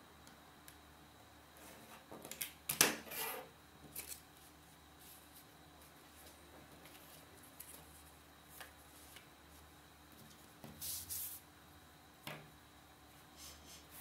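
Paper-craft handling sounds: a snap-off utility knife cutting a paper card along a steel ruler, with a sharp clattering scrape about three seconds in, the loudest sound. Later, paper rustles as the cut sheet is folded, and there are a few small clicks.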